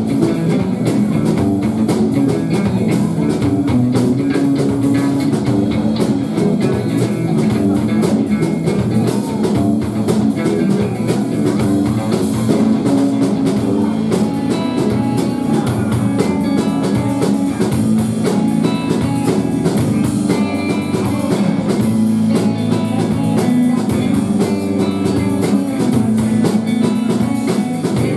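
Live rock band playing with electric guitar over a drum kit, steady and loud without a break, and no singing.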